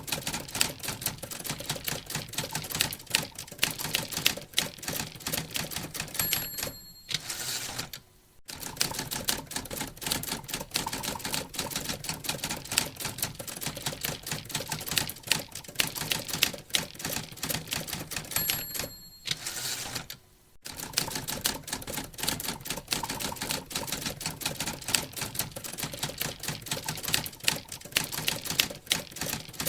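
Typewriter typing fast, keys clacking several times a second. About every twelve seconds the margin bell dings, and the carriage is returned with a short sweep and a brief pause before the typing starts again.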